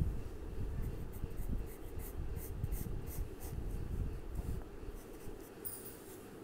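Colour pencil scratching on paper in quick repeated strokes while a long line is drawn; the strokes stop about five seconds in.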